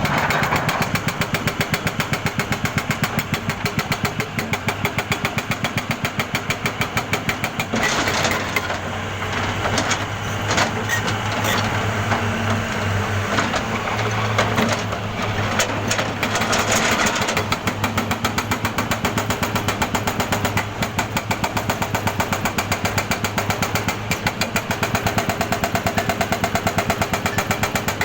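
Jackhammer pounding with a rapid, even beat. In the middle stretch the even beat breaks up into rougher, irregular noise over a steady low hum, then returns.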